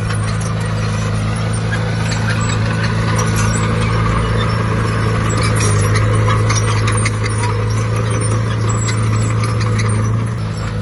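Heavy diesel earthmoving machine running steadily under load, with a light metallic clatter over the engine note.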